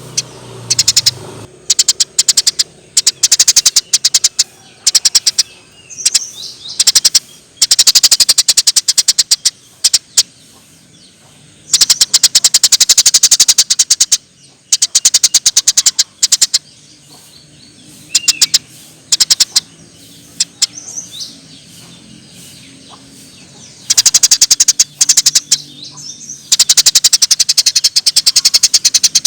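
Eurasian tree sparrow chattering: rapid, high, clicking chirps in dense runs of one to two seconds, repeated again and again with short pauses between.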